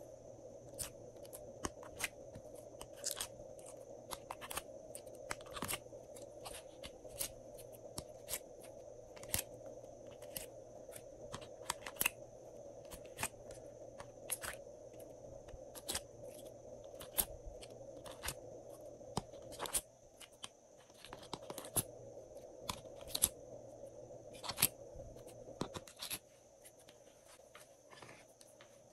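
Irregular sharp clicks and taps from a plastic mould tray being handled as coloured slime shapes are pressed out of it into a glass dish, over a steady faint background hum.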